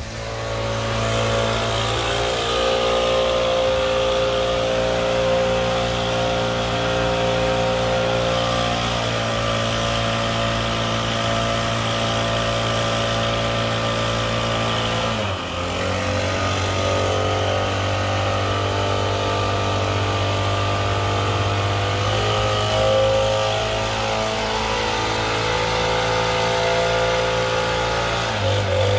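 Leaf blower engine running steadily at high throttle, its pitch dropping briefly about halfway through and shifting again near the end.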